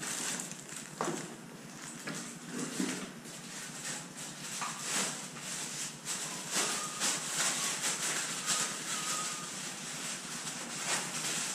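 Irregular clicks, knocks and rustling from hands handling bike parts and packing material, with a faint thin tone for a few seconds midway.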